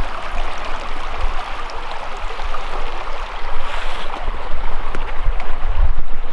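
Shallow creek running and trickling over rocks, a steady rushing water sound, with irregular low rumbles underneath.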